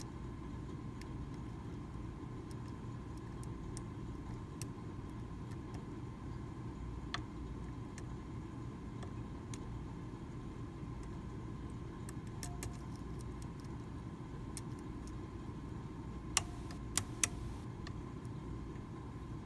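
Faint metal ticks and clicks of a lock pick working the pins of a Medeco original mortise cylinder under tension, scattered through, with three sharper clicks in quick succession near the end. A steady low hum runs underneath.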